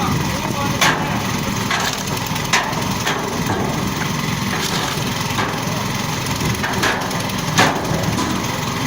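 Wood cracking and splintering: three sharp cracks, the loudest near the end, over a steady rough noise.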